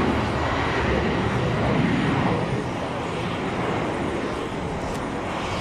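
Embraer E190's twin turbofan engines at takeoff thrust on the takeoff roll, a steady rushing jet noise that slowly grows fainter after a couple of seconds as the aircraft speeds away.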